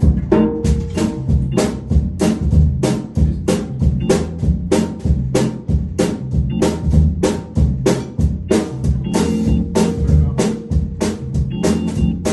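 Instrumental band intro: a drum kit keeps a steady beat with sharp snare hits, about three a second, over sustained low keyboard notes and chords.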